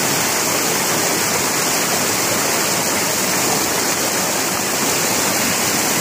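River water rushing steadily over smooth granite slabs and a small cascade into a pool: a loud, even rush with no breaks.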